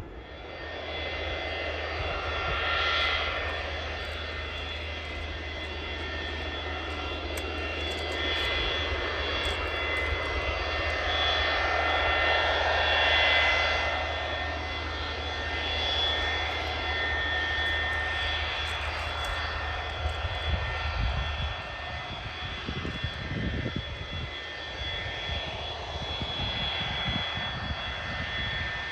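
Boeing 727's three Pratt & Whitney JT8D turbofan engines running with a steady high whine over a jet roar as the jet rolls along the runway, swelling louder twice. In the last third, low buffeting rumbles on the microphone.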